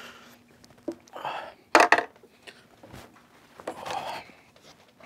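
Low voices in a quiet room, with a sharp clattering knock about two seconds in.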